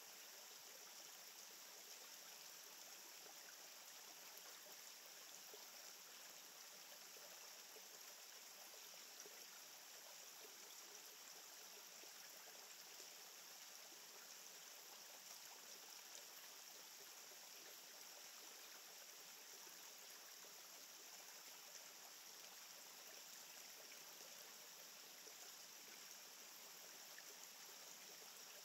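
Near silence: a faint, steady, even hiss of outdoor ambience, with no distinct events.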